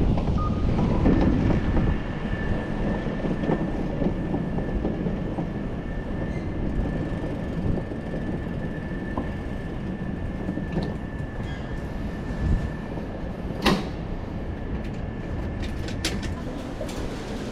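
Train carriage heard from inside: a steady rumble with a high steady whine that stops near the end, and a sharp clack about fourteen seconds in.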